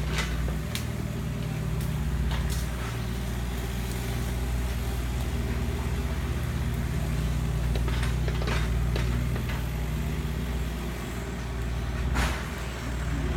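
A large engine running steadily with a low, even hum, as from a truck or heavy machine. A few sharp clicks or knocks sound over it, the loudest near the end.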